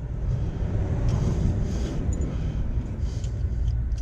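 Steady low rumble with faint rustling and a few light knocks of hands and parts being handled around an engine.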